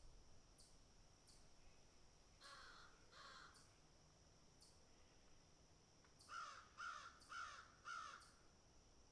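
Crows cawing: two caws about two and a half seconds in, then a run of four quick caws about six seconds in. A faint steady high-pitched tone with soft regular ticks runs underneath.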